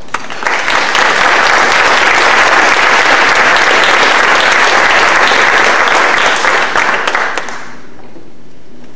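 An audience applauding, steady for about seven seconds and then dying away.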